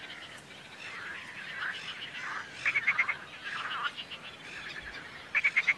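Marsh frogs (laughing frogs) calling, with faint calls throughout. There are two louder bursts of rapid rattling pulses, one about three seconds in and one near the end.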